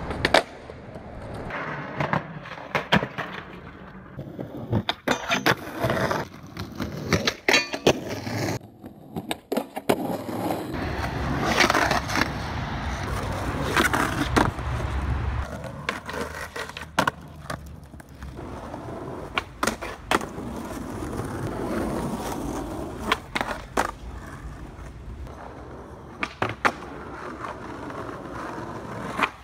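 Skateboard wheels rolling on concrete and asphalt, broken again and again by sharp clacks of tail pops, landings and the board striking ledges.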